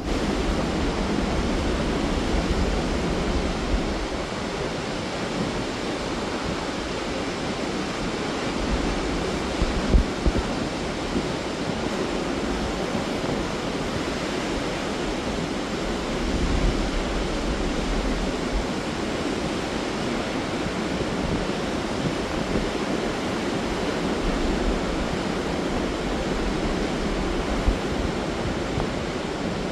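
Waterfall rushing steadily, a continuous hiss of falling water, with gusts of wind on the microphone now and then.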